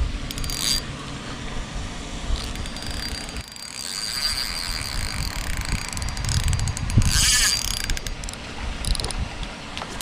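Fishing reel clicking and buzzing in short bursts as a hooked fish is reeled in, the strongest burst about seven seconds in.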